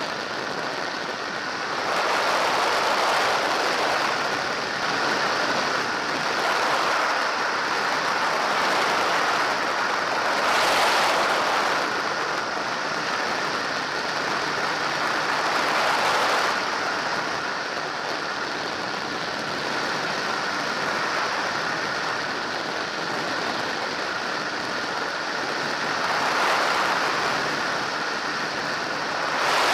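Weight-shift microlight trike in flight: steady engine drone with wind rushing over the open cockpit, the noise swelling and easing several times.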